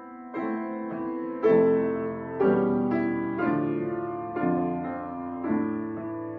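Upright piano playing a slow passage of full chords, a new chord struck about once a second and left to ring, the loudest about a second and a half in.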